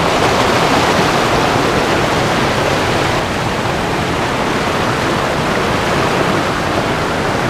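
Fast river water rushing over boulders in rapids: a loud, steady rush that eases slightly after about three seconds.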